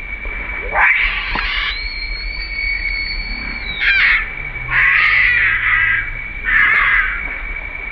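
Baby macaque distress screaming while an adult grabs it. A shriek rises into one long, high, held squeal that breaks off with a falling wobble near the four-second mark, followed by two harsher, raspier screams.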